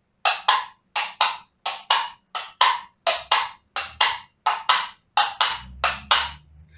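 Coconut-shell halves (plastic coquinhos) knocked together in a clip-clop rhythm that imitates a horse's hooves: about nine pairs of sharp knocks, a pair roughly every 0.7 s.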